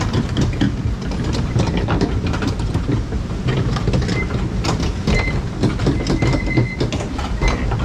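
Log flume boat running through the ride with dense, rapid clicking and clattering over a low rumble, and a few short, thin squeaks from about halfway through.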